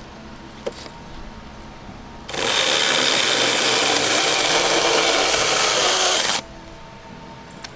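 Kebtek 16.8 V cordless handheld mini chainsaw (L5001) running and cutting through a fallen branch, a steady buzz for about four seconds that starts a couple of seconds in and cuts off sharply.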